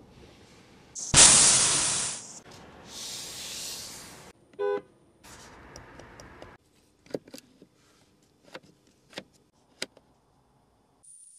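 In a Range Rover Sport's cabin, a loud hiss starts about a second in and fades over about a second, followed by a softer hiss. About halfway through a short electronic chime sounds, then a scatter of small clicks from switches and controls.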